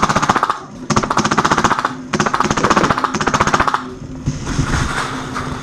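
Custom HPA-powered G&P M249 Para airsoft light machine gun firing long full-auto bursts, a rapid even clatter that breaks off for a moment three times.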